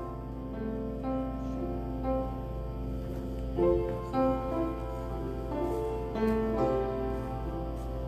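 Electronic keyboard with a piano sound playing slow chords and a melody of held notes, several sounding at once.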